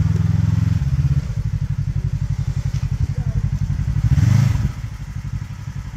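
Side-by-side UTV engine working under load as the machine crawls up a steep wet rock ledge. It runs higher for about a second, drops to a low, evenly pulsing run, then revs up sharply about four seconds in before easing off again.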